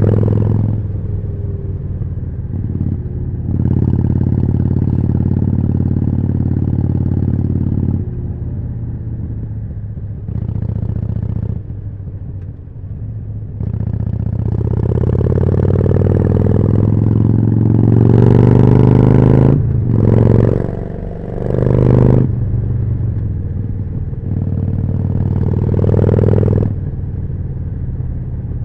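Harley-Davidson Forty-Eight's 1200 cc V-twin running through a Jekill & Hyde exhaust while riding, the revs dropping and climbing again several times as the rider shifts and rolls the throttle off and on. In the second half the revs climb steadily for several seconds, then rise and fall quickly a few times.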